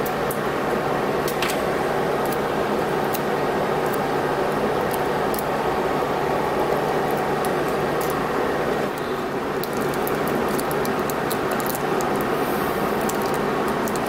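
A steady background hum and hiss, with scattered small clicks and taps from the LiPo battery's balance-lead wires and plastic JST-XH plug being handled. The clicks come closer together a little after the middle.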